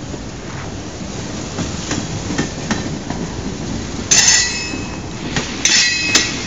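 Freight train of tank cars rolling past below, a steady rumble with sharp clicks of wheels over the rail joints. Twice, about four seconds in and again near the end, the wheels give a loud, high squeal on the rails.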